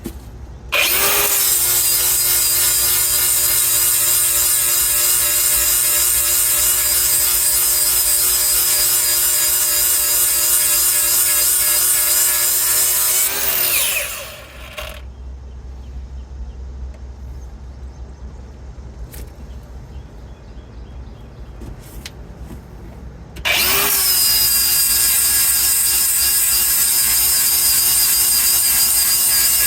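Handheld power grinder sharpening the teeth on the mill of a Bandit Beast 4680 grinder. It spins up with a quick rising whine about a second in, runs steadily for about thirteen seconds, then winds down. After a quieter pause of about ten seconds it spins up again and keeps running.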